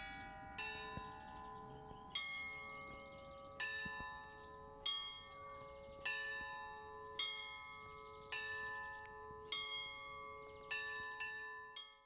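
Church bells ringing, struck a little more than once a second, each stroke ringing on into the next. The ringing fades out near the end.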